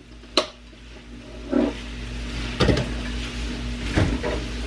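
Sliced bell peppers sizzling in a frying pan, with a few knocks and scrapes of a plastic turner against the pan as they are stirred.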